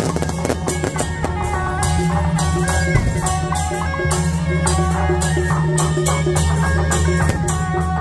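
Loud festival music: a stepping melody over a steady low drone, with a regular drumbeat and rattling percussion.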